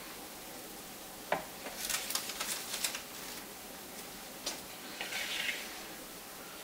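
Spoon scraping and knocking against a plastic mixing bowl as a chocolate pudding mixture is spooned out onto a cake. There is a tap about a second in, a run of scrapes and clicks over the next second and a half, then another tap and a short scrape.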